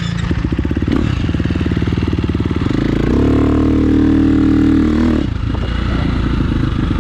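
Dirt bike engine running at a fast idle, then revved up about three seconds in and held for a couple of seconds before dropping back.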